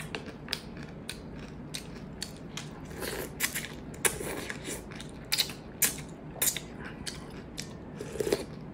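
Close-miked eating: wet mouth clicks and chewing throughout, with spicy beef noodles slurped off a wooden spoon in several short bursts from about three seconds in.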